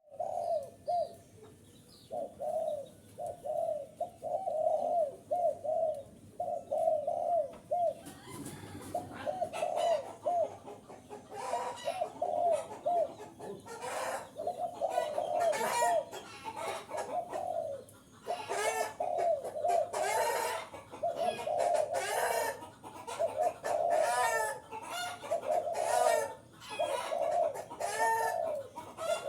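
Spotted doves cooing in repeated phrases of short, low notes, as played to lure in wild doves; from about eight seconds in, louder calls with sharper starts overlap the cooing.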